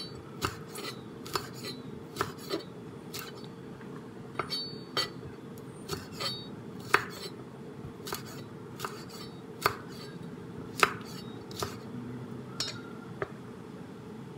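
Santoku-style chef's knife slicing French beans on a wooden cutting board: sharp knocks of the blade striking the board, irregular, about one a second, stopping a little before the end. A faint steady hum runs underneath.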